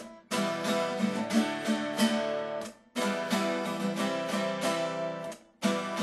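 Acoustic guitar strummed, each phrase of chords cut off sharply to a brief silence before the next, three stops about two and a half seconds apart.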